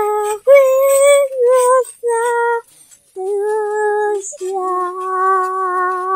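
A high voice singing a slow tune without accompaniment, in several held notes, pausing briefly near the middle and ending on a long sustained note.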